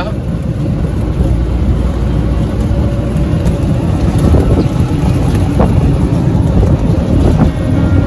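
Car engine and road noise heard from inside the cabin while driving: a steady low rumble.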